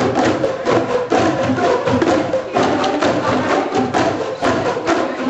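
A roomful of people striking boomwhackers, colour-coded plastic tubes tuned to different notes, in a steady rhythm, several pitches sounding together.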